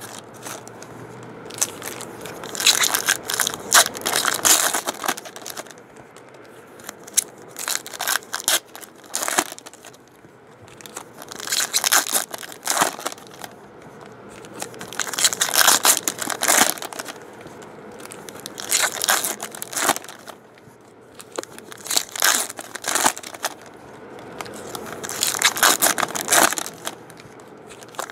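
Foil trading-card packs being torn open and crinkled by hand, in crackly bursts every three to four seconds.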